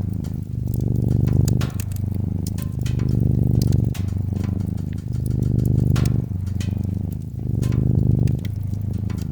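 Domestic cat purring in slow, even cycles of about two seconds, each breath swelling and fading, over the crackle and pop of a wood fire in a fireplace.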